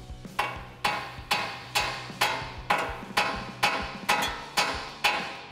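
A hammer striking the steel spindle (steering knuckle) of a Toyota Tacoma about eleven times in a steady rhythm, roughly two blows a second, each with a short ring. The blows are meant to shock loose the tapered stud of the tie rod end so it pops out of the spindle.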